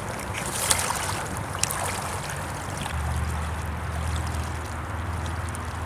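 Wading through shallow, rocky river water in rubber waders: water sloshing and splashing around the legs, with a few sharp splashes in the first two seconds. About halfway through, a low steady rumble comes in underneath.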